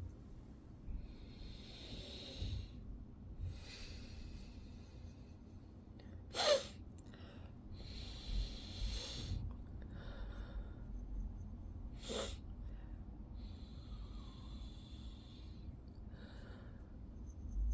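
A person's sniffing and hitching breaths as a pepper-irritated nose builds toward a sneeze, with two short sharp voiced bursts, the first and loudest about six seconds in and the second about twelve seconds in.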